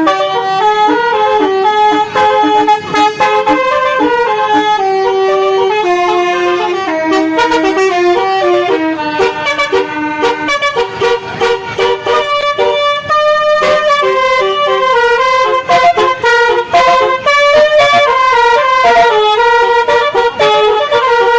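Basuri telolet horn, a musical vehicle horn of several horns, loudly playing a melody in held and quick-stepping horn notes.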